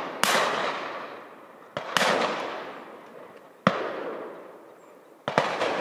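Shotguns firing at high driven pheasants: about six shots at irregular intervals, some in quick pairs, each followed by a long echo that rolls around the wooded valley.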